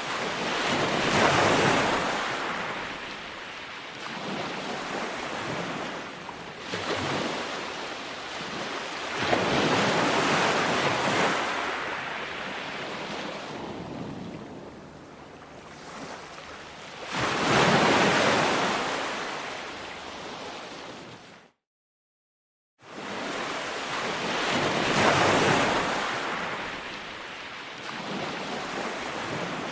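Ocean waves breaking on a beach, the surf swelling and fading in about four big surges, one every seven or eight seconds, with some wind on the microphone. The sound cuts out completely for about a second and a half about three-quarters of the way through, then the surf resumes.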